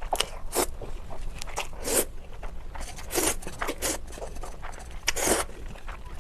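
Close-miked mouth sounds of noodles being eaten: several short, noisy slurps and wet chewing, about six separate bursts.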